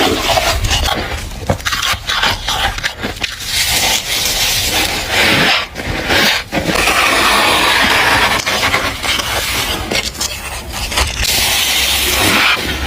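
Frost buildup on a humidifier being scraped off by hand: long, rough scrapes of ice under the fingers with short breaks between strokes.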